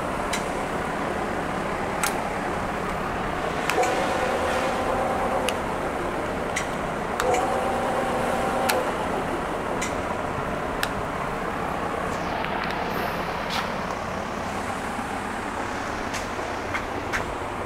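Jet BDB929 belt-drive bench lathe running steadily, with scattered light clicks and two short steady tones.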